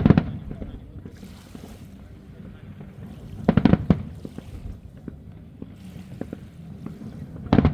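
Fireworks bursting overhead: quick clusters of several sharp bangs at the start, about halfway through and again at the very end, with a steady low rumble of background noise between them.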